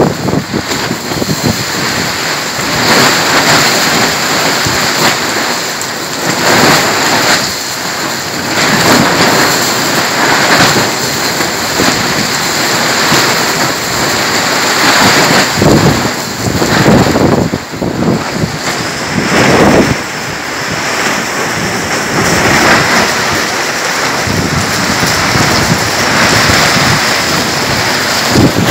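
Heavy downpour with gusty wind, swelling and easing every few seconds and buffeting the microphone.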